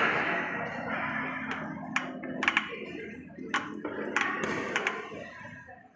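Crowd applause in an echoing indoor sports hall dying away, followed by a handful of sharp taps and knocks spread over a few seconds.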